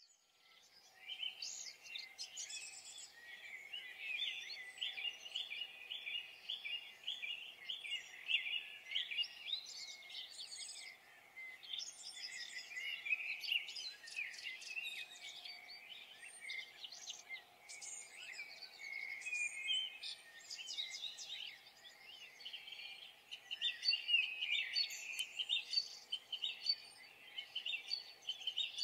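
Nature ambience of many songbirds chirping and calling at once in a dense, overlapping chorus, fading in at the start.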